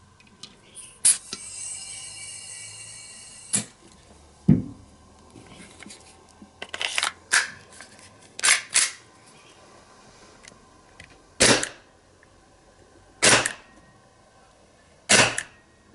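Gas-powered airsoft gun firing sharp single shots, several in quick succession and then three more about two seconds apart. Near the start there is a hiss of gas lasting a couple of seconds.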